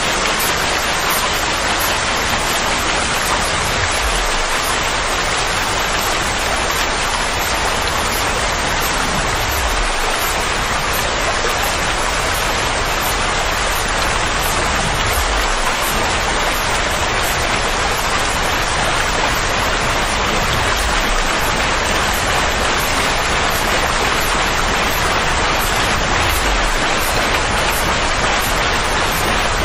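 Steady, even rushing noise of a white-noise-style soothing track for colicky babies. A soft low whoosh falls in pitch about every five and a half seconds.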